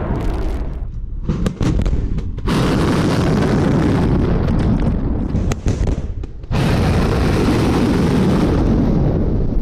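Missile launch: the rocket motor's blast and heavy rumbling exhaust noise, heard across several short clips with abrupt cuts between them about a second and a half, two and a half and six and a half seconds in.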